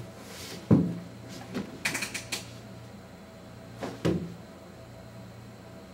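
A dull thump, then a quick run of sharp clicks, then a second thump, over a steady low hum. The first thump is the loudest.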